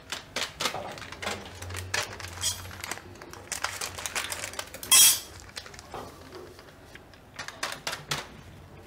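Kitchen handling noises around a pan of cashew mixture: irregular light clicks and taps, like utensils and a packet being handled, with one short, louder rustle about five seconds in.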